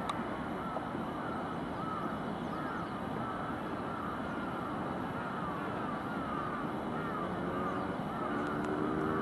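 Steady distant city rumble heard from a hilltop, with a bird chirping over and over, short rising-and-falling notes about once or twice a second. Near the end a drawn-out, pitched call or horn-like tone joins in for about a second and a half.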